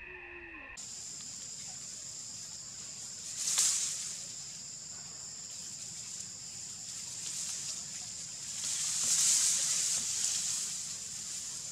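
Steady high-pitched drone of insects, two thin tones held without a break, swelling into a louder hiss about three and a half seconds in and again around nine seconds.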